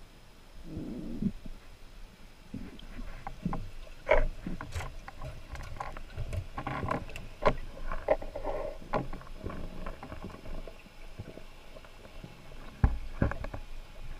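Underwater sounds from a diver swimming with a speargun between rocks: scattered clicks and muffled knocks over a low watery rumble, with sharper knocks about four seconds in and near the end.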